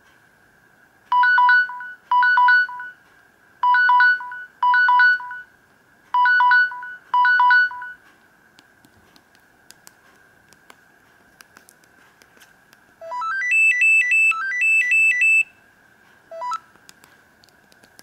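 Samsung GT-E2550 phone's timer alarm going off: three pairs of short two-note electronic beeps as the countdown runs out. A few seconds later the same phone gives a quick rising run of beeps, then rapid repeated higher beeps, and one short blip near the end.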